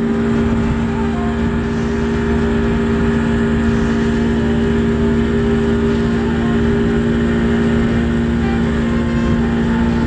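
A boat engine running steadily: a loud, constant hum with a strong low tone that does not change.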